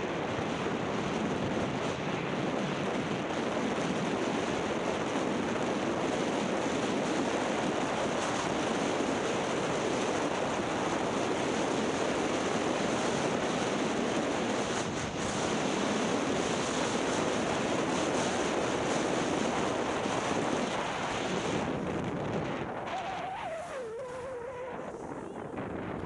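Wind rushing over the camera's microphones and skis sliding on packed snow during a downhill ski run, a steady loud rush. Near the end the rush eases as the skier slows, and a faint wavering tone comes through briefly.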